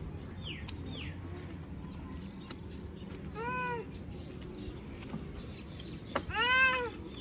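An animal calling twice: a short cry that rises and falls in pitch, then a longer, louder one about three seconds later.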